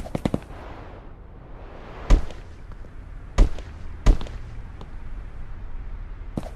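A series of sharp knocks and clacks at irregular intervals: a quick run of three at the start, single loud ones about two, three and a half and four seconds in, and another quick run near the end.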